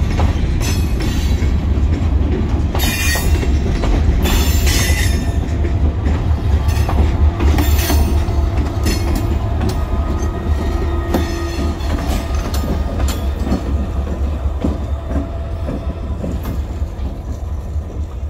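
Freight train of open hopper cars rolling slowly past over the rails with a heavy low rumble and clacking wheels, and several short high wheel squeals in the first half. About halfway through, the diesel of the EMD SD40-2W locomotive shoving the cars passes, and the sound eases off toward the end.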